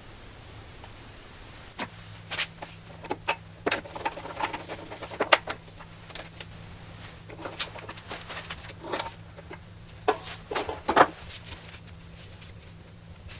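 Scattered clicks, clinks and knocks of metal parts and hand tools being handled and set down on a workbench, with a steady low hum starting about two seconds in.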